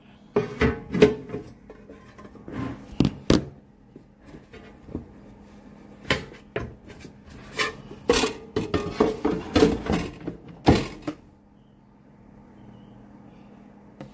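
Irregular knocks and clatters of hard parts being handled, such as an air fryer's basket and grill plate, in two busy spells with a pause between, over a faint steady hum.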